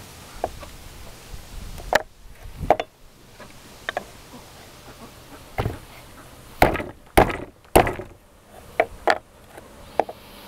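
About ten irregular knocks and bangs on wood as a seized old hinge is struck against the wooden worktable to break it loose without a hammer. The heaviest blows come in a quick cluster about two-thirds of the way through.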